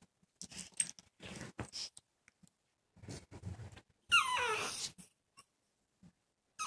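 Small Yorkie-type male dog whining: a loud high whine that falls in pitch about four seconds in, and another falling whine starting near the end. He whines from being kept away from a female in heat.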